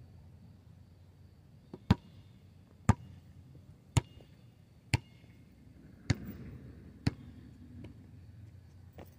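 A basketball bounced on an asphalt court, dribbled at an even pace of about one bounce a second. There are seven sharp bounces, starting about two seconds in, with one longer gap near the end.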